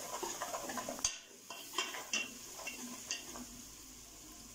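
Slotted metal spoon stirring a thick onion-tomato masala in an aluminium pressure cooker, with irregular scrapes and clinks against the pot. The clinks thin out after about three seconds.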